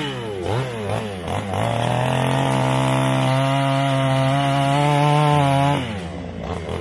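Erman HM5200A two-stroke gas chainsaw revved up and down a few times, then held at high revs for about four seconds as it cuts into a log, dropping back toward idle near the end.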